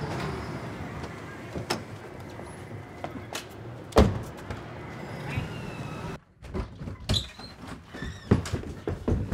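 A man shoves hard against a building's wooden front door: a few knocks, then one loud thump about four seconds in over a faint background hiss. After that come quick footsteps and door knocks in a small hallway.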